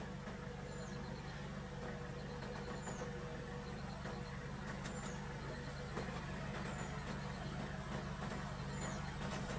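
A vehicle engine idling steadily, with a bird repeating a short high call about every one and a half seconds.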